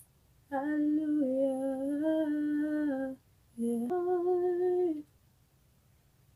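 A woman humming a slow melody, unaccompanied, in two held phrases with a short breath between them; the second phrase steps up to a higher note. A faint click right at the start.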